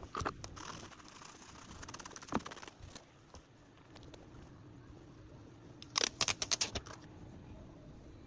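Small hard clicks and taps from handling an iPhone and repair tools: a few clicks near the start, one about two seconds in, then a quick run of clicks about six seconds in.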